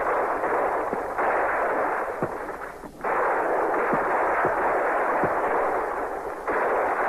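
Dense, continuous crackle of massed gunfire on an old battle-film soundtrack, thin and narrow in tone. It fades and cuts back in abruptly a few times.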